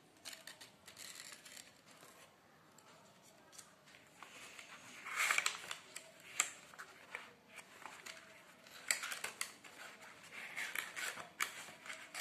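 Cardstock and glitter-paper flaps of a handmade explosion gift box being lifted, unfolded and pressed flat by hand: paper rustling with light crisp clicks, loudest about five seconds in and again near the end.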